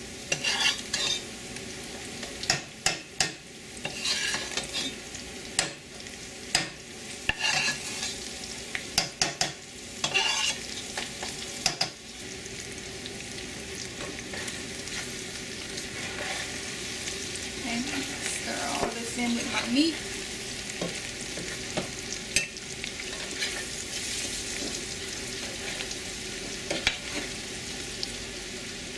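A spoon scraping and clinking against a metal pot as a roux with onions and vegetables is stirred, over a steady frying sizzle. The scrapes come thick and fast for about the first twelve seconds, then thin out to the odd click while the sizzle goes on.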